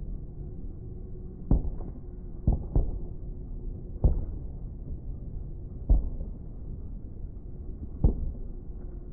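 Aerial fireworks bursting: about seven dull, muffled booms at uneven intervals, two of them close together about two and a half seconds in, over a steady low rumble.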